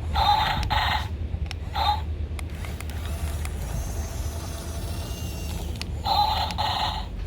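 Small electric motors and gears of a remote-control toy bulldozer whining as it is driven: two short bursts of louder running about a second long, near the start and about six seconds in, with a fainter, wavering whine in between. A steady low rumble lies underneath.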